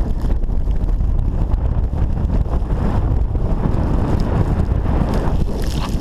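Strong gusty wind buffeting the microphone, a dense low rumble that never lets up.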